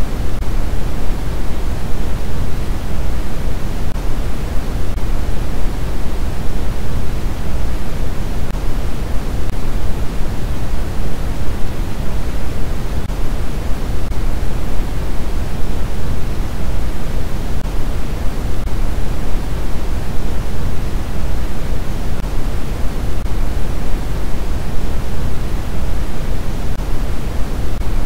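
Continuous generated white noise: a steady, even hiss that leans toward the low end and does not change.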